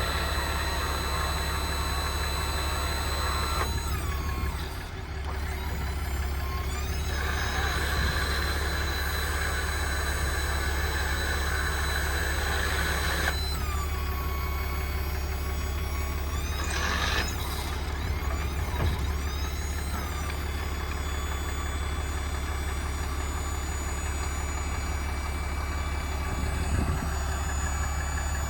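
An engine running steadily, with high whining tones over it that shift in pitch several times.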